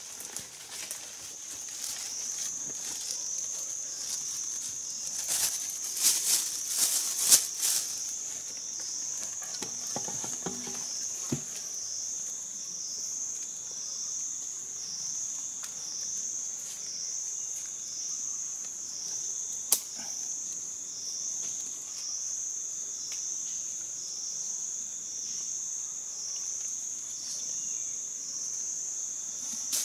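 Forest insects droning in one steady high-pitched tone that swells and fades about once a second. Louder rustling and cracking of undergrowth comes a few seconds in, and there is a single sharp click about two-thirds of the way through.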